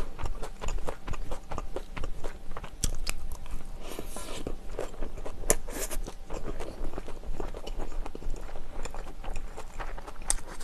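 Close-miked chewing of a mouthful of bibimbap mixed with salted herring roe, with many small crunchy, wet clicks. A spoon scrapes the stainless steel bowl while scooping the next bite.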